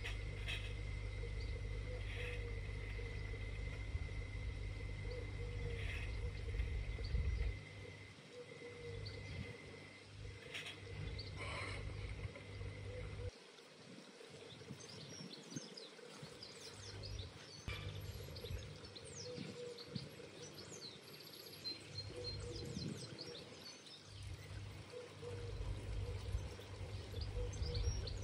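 Outdoor ambience of a garden railway: a gusty low rumble that comes and goes, typical of wind on the microphone, with a faint steady hum under it and birds chirping, more often in the second half. The hum may come from the LGB G-scale model trains running on the layout.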